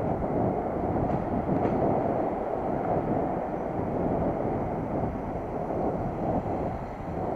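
Wind buffeting the microphone and road rumble while riding a bicycle along a street: a steady low rumbling noise.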